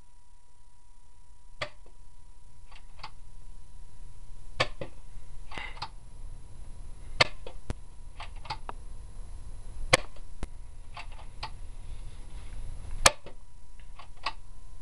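JT Splatmaster spring-powered toy paintball pistol being fired and re-cocked by hand. A sharp snap comes about every three seconds, and each is followed about a second later by two or three quieter clicks as the gun is cocked again.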